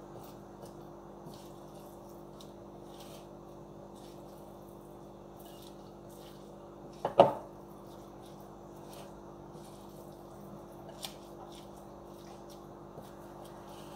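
Vegetable salad being tossed with a wooden spoon in a glass bowl: soft wet squishing and rustling of dressed leaves with small clicks, and one sharp loud knock about halfway through. A steady low hum runs underneath.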